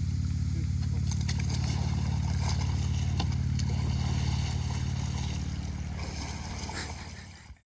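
An engine running steadily with a low, even hum, fading out near the end.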